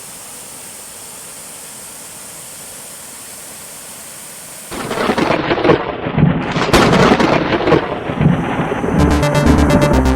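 A steady rain-like hiss, broken a little under five seconds in by a sudden loud crack of thunder and rolling, crashing rumbles. Electronic music with a steady beat starts about a second before the end.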